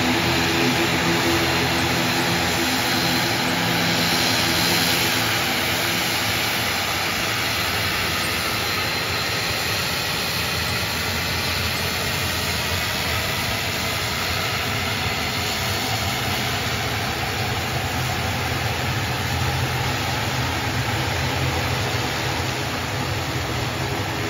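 ATR 72's twin turboprop engines running at taxi power: a steady propeller drone with a hissing whine over it. It is a little louder in the first few seconds, and the propellers' humming tone fades midway and comes back near the end.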